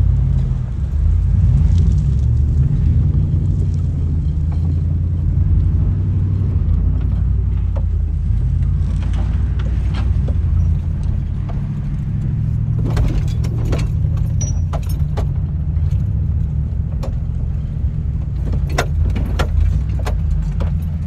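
Ford Expedition's V8 engine running under load through a low, steady rumble as the SUV climbs a dirt bank off-road. From about halfway, repeated rattling and jingling clicks come in as the truck bounces over the rough ground.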